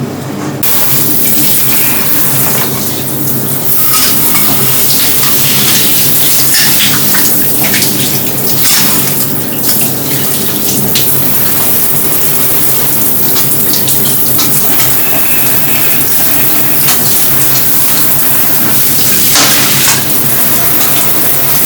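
Water running steadily from a tap, with scattered clinks of dishes, over a constant low hum.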